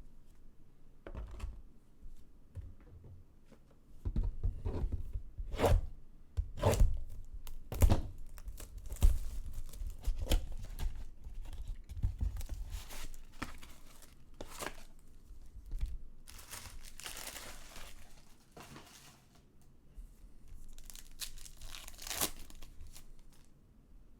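Baseball card packaging being torn open and crinkled, with a run of sharp knocks and taps from the cards and box being handled about four to eight seconds in.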